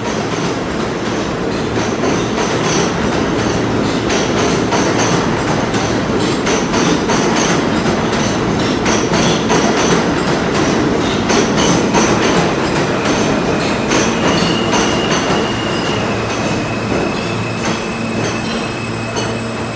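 R160 subway train running alongside the platform, with a continuous rumble and quick clicking of wheels over the rails. About fourteen seconds in, a steady high squeal joins as the train slows for the station.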